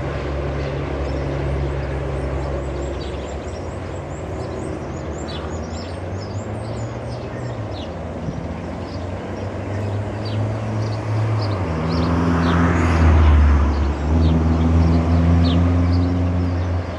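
Motor vehicle engines humming steadily, with a louder vehicle pass that swells and fades about three-quarters of the way through. Short high chirps are scattered throughout.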